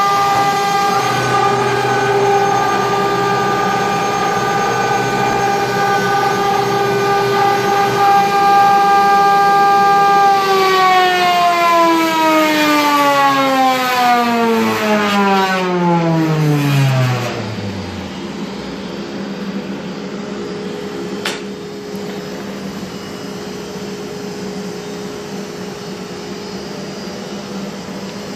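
CNC router spindle running with a steady high whine while cutting foam. About ten seconds in the whine falls smoothly in pitch as the spindle spins down, fading out over the next several seconds. A quieter steady machine hum goes on after it.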